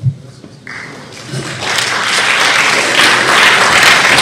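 A single dull thump right at the start, then audience applause that builds from about a second and a half in and carries on steadily and loudly.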